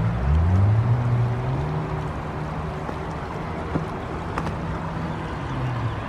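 Shallow river rushing over rocks, with the low hum of an engine that rises in pitch over the first two seconds and then holds steady.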